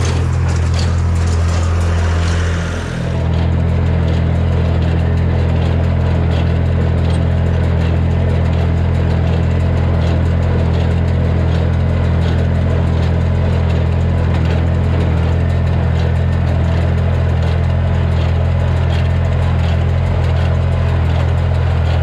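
Massey Ferguson 245 tractor engine running steadily under load while pulling a working Massey Ferguson square baler through hay, with a brief dip about three seconds in.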